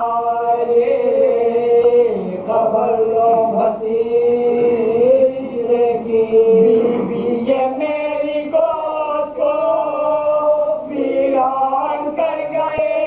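A group of men chanting a marsiya, an Urdu elegy, in soz-khwani style, their voices together and unaccompanied, drawing out long held notes with short breaks for breath.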